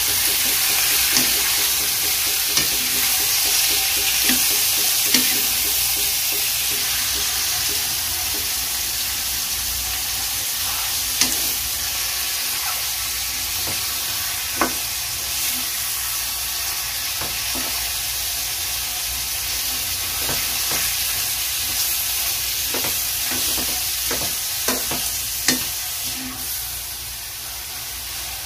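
Pork liver, heart and meat sizzling as they are sautéed in a hot wok, with a wooden spatula stirring and clicking against the pan every few seconds. The sizzle eases slightly toward the end.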